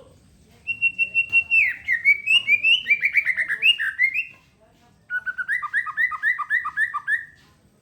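A songbird singing two loud phrases a second apart: the first opens on a steady high note and breaks into a fast run of chirping notes, the second is a quick string of about ten repeated two-part notes.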